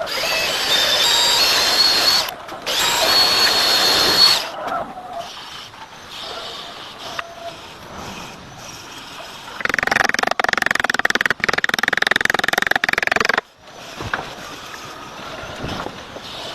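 An electric power tool running in two bursts of about two seconds each near the start, its whine rising in pitch, then a rougher, harsher run of about four seconds past the middle.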